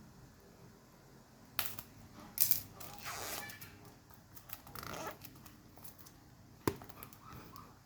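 Phone packaging being handled during an unboxing: irregular rustling and crinkling of the box and its wrapping, with a sharp click about three-quarters of the way through.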